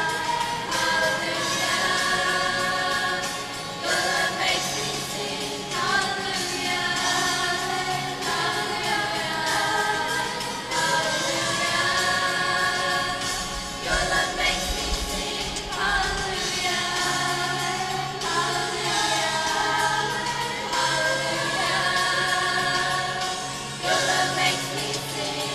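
A school choir singing, in long held phrases that change pitch every few seconds.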